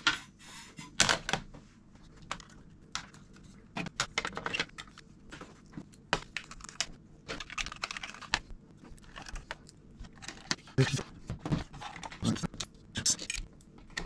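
Quick clicks, taps and rattles of small screws, a precision screwdriver and a plastic hard-drive caddy being handled while a 2.5-inch SSD is fitted into a Mac mini's drive caddy, sped up in fast-forward.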